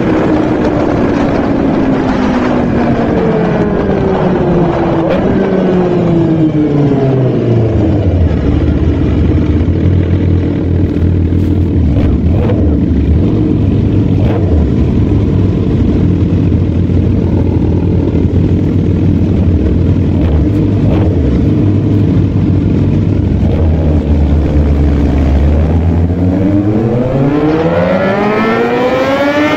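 Motorcycle engine winding down from high revs over about eight seconds, then idling steadily, then revving up again near the end.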